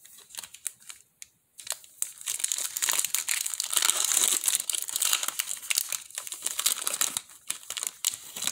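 Foil Pokémon trading card booster pack being torn open and crinkled by hand. A few small ticks come first, then the wrapper crackles for several seconds, starting about one and a half seconds in.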